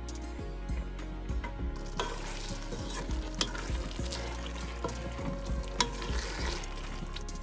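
A wooden spatula stirs and scrapes a pot of collard greens and mutton in an aluminium pot, knocking sharply against the pot a few times. From about two seconds in, the food sizzles.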